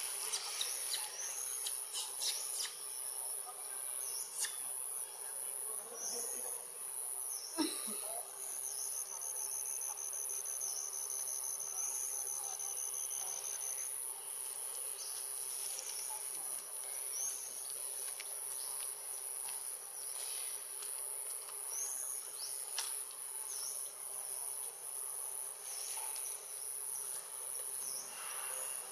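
Steady high-pitched drone of insects in the trees, with a second, lower insect tone joining for a few seconds in the middle. Short chirps come and go throughout, and a few faint clicks sound near the start, with a sharp tap about eight seconds in.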